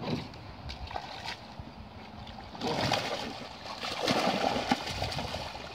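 Water splashing and sloshing as a bream thrashes in a mesh net lowered into the water, louder from about two and a half seconds in.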